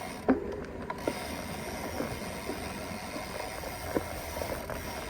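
Mountain bike riding along: a steady rolling rumble with a few sharp clunks and rattles, the loudest about a third of a second in.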